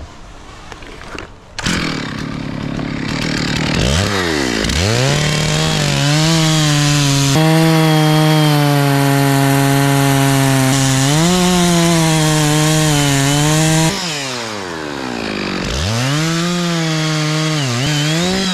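Two-stroke chainsaw revving up and cutting into the trunk of a dead pine, its engine pitch sagging as it bogs under load in the cut. About fourteen seconds in it drops back toward idle, then revs up again and goes back into the wood.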